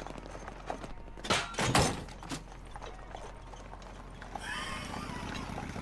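Cartoon soundtrack of a horse-drawn carriage: a horse neighing, loudest about a second and a half in, with hooves clip-clopping.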